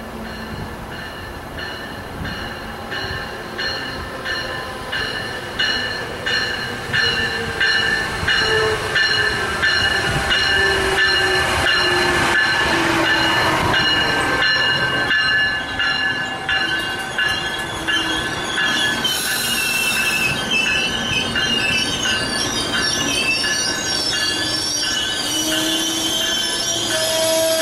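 Amtrak ACS-64 electric locomotive and Amfleet coaches passing on the near track, growing louder over the first ten seconds as the train arrives. The wheels click in a steady beat over the rail joints, with high steady squealing tones, and a hum falls in pitch as the locomotive goes by.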